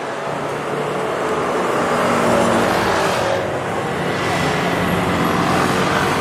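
City road traffic: cars driving past, with engine and tyre noise that builds over the first two seconds and then stays steady.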